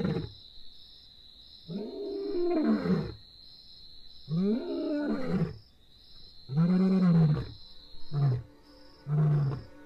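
Male lion roaring: three long roars, each rising then falling in pitch, then short, lower grunts about a second apart toward the end.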